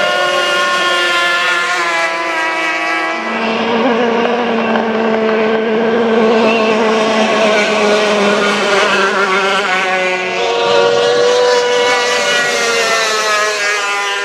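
Racing outboard engines of tunnel-hull powerboats running at high revs at full speed. The engine note steps to a new, lower pitch about three seconds in and changes again near ten seconds.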